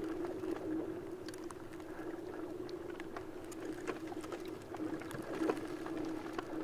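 Sea-ice floes rubbing against each other as they move: a steady, wavering humming tone with many small clicks and crackles scattered through it.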